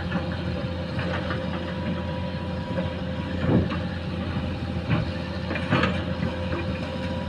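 Excavator's diesel engine running steadily with a constant whine, and a few short knocks about halfway through and near the end.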